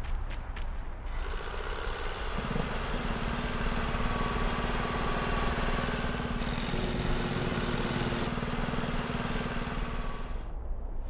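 Added motor-vehicle engine sound effects: a steady engine drone that thickens with a deeper second engine a couple of seconds in, with a hiss for about two seconds midway. A few quick clicks at the very start, and the engines cut off shortly before the end.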